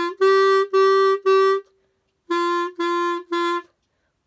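Solo clarinet playing a phrase: two short notes, three held repeated notes, a short rest, then three held repeated notes a little lower.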